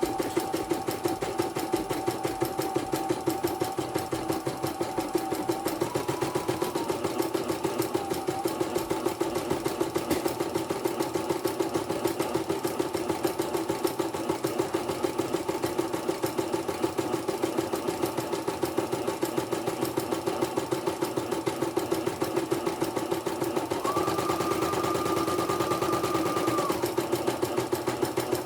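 CNY portable computerized embroidery machine stitching, a fast, even needle rattle. A thin whine rides over it at the start, steps up in pitch about six seconds in, then stops, and returns higher for about three seconds near the end.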